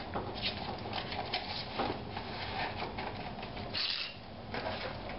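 Slices of smoked sausage sliding off a plate and dropping into a pot of thick, simmering red beans: a run of soft, irregular plops and clicks, with a brief scrape about four seconds in.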